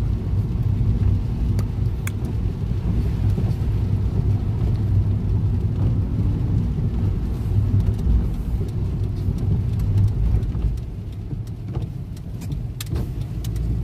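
A car being driven, heard from inside the cabin: a steady low engine and road rumble that eases off briefly about eleven seconds in, with a few faint clicks.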